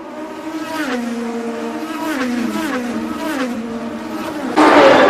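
Open-wheel race car engine downshifting under braking, its pitch falling in several steps. A louder race engine cuts in near the end.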